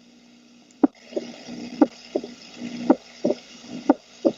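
Heart sounds heard through a stethoscope: paired lub-dub beats, the first and second heart sounds (S1 and S2), about one beat a second, played to illustrate the second heart sound. A steady low hum runs underneath.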